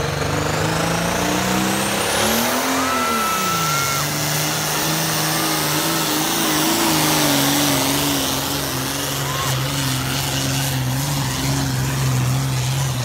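Pulling tractor's engine running hard under load down the track, its pitch climbing, swinging up and back down as it passes close by, then holding steady.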